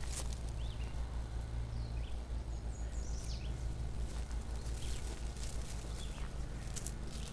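Footsteps and rustling through tall grass and weeds over a steady low rumble, with a few faint, short high chirps from birds.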